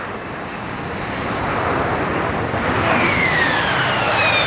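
Harrier jet engine running: a loud rushing noise that builds steadily, with a high whine falling in pitch from about three seconds in.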